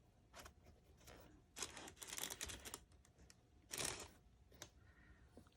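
Faint handling noises from a sneaker being turned over in the hands: scattered light clicks and rustles in short clusters, the busiest stretch about two seconds in and another brief one near four seconds.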